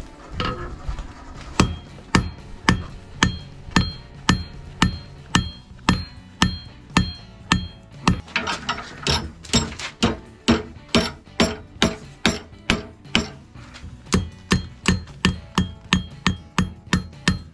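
Blacksmith's hand hammer striking hot 3/8 inch mild-steel rod on an anvil, about two blows a second, many with a bright ring, as the rod's end is forged flat.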